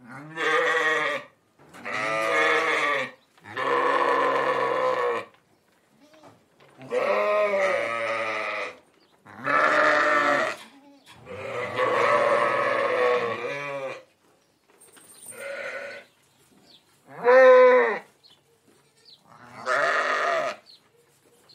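Sheep bleating: a series of nine long, wavering calls, each lasting one to two seconds with short pauses between, one of them fainter about fifteen seconds in.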